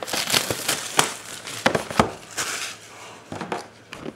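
Clear plastic shrink-wrap crinkling and crackling as it is pulled off a sealed trading-card box, with scattered rustles and clicks. The crackling is dense for the first two and a half seconds, then thins to occasional clicks.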